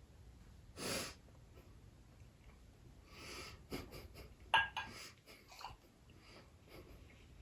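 A person breathing out sharply through the nose while tasting food, a few short breathy puffs, with a cluster of small clicks about four and a half seconds in.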